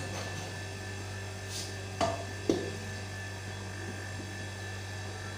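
Steady electrical hum, with two short clinks about half a second apart around two seconds in, as a steel plate tips the last of the rice into a steel cooking pot.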